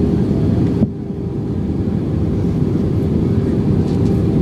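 Airbus A320 cabin noise from inside the passenger cabin: a steady roar of the jet engines and airflow with a constant hum. Just under a second in, the hiss drops suddenly, then builds back up.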